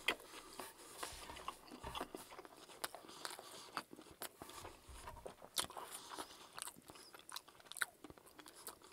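A bite into a McDonald's Chicken Big Mac, with a sharp crunch right at the start. Then close-up chewing follows, full of small crisp crunches and clicks from the breaded chicken patties, lettuce and bun.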